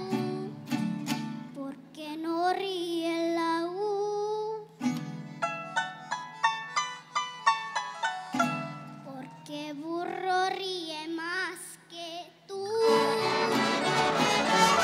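A young girl singing a mariachi song into a microphone with a wavering vibrato, backed by a youth mariachi's violins and guitars. Runs of quick string notes fill the gap between her phrases, and near the end the sound turns louder and denser.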